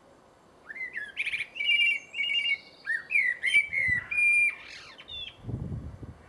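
Blackbird singing a run of whistled notes, rising glides and warbling two-tone trills that mimic a phone's ring, ending in a rougher chatter; a low rumble comes in near the end.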